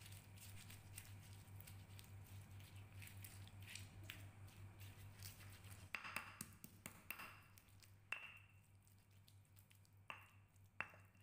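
Faint squishing and scraping of a mortar and pestle (cobek and ulekan) mashing fried chillies, shallots, garlic and kencur into sambal, with many small soft knocks, then a few sharper separate knocks in the second half. A steady low hum runs underneath.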